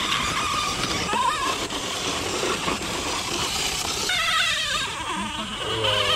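Scale RC rock crawler's electric motor and gears whining, the pitch wavering up and down with the throttle, getting stronger about two-thirds of the way through.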